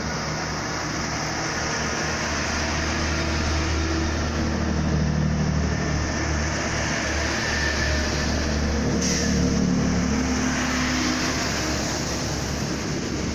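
Class 166 Turbo diesel multiple unit pulling out past the platform, its underfloor diesel engines running under power with a steady low drone over wheel and rail noise. The engine note shifts a little higher about two thirds of the way through.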